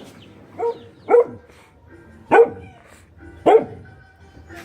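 A dog barking at the person near its puppies: four sharp, single barks, unevenly spaced. These are guarding barks.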